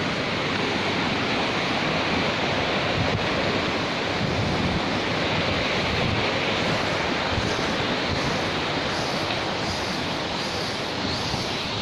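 Mountain stream rushing steadily over boulders and rocks. Faint cicada buzzing joins high above it in the second half.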